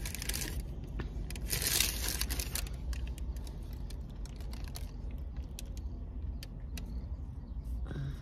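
Paper taco wrapper and a small hot sauce packet crinkling and tearing in two short bursts, near the start and about two seconds in, then faint scattered clicks and rustles as the sauce is squeezed onto a hard-shell taco.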